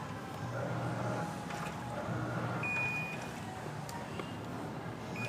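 Automatic washing machine running: a low motor hum that cuts in and out every second or so. A single short high beep sounds about halfway through.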